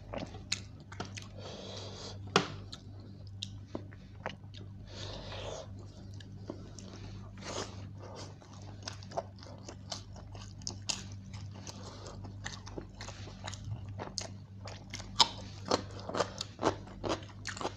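Close-up chewing and mouth sounds of a person eating chicken biryani by hand, with many sharp wet clicks and smacks that come faster near the end, over a steady low hum.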